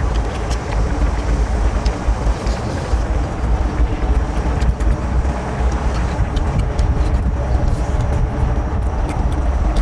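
Loud, steady low rumble of outdoor noise, with a few faint small clicks over it.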